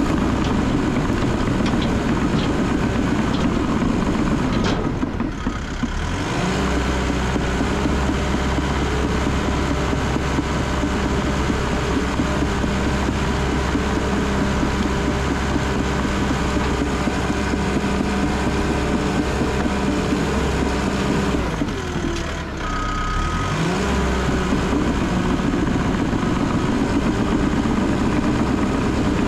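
Cat D3 bulldozer's diesel engine running steadily under load as the dozer pushes brush and logs, heard from the operator's seat. The engine note sags briefly about five seconds in and again past twenty seconds, then picks back up.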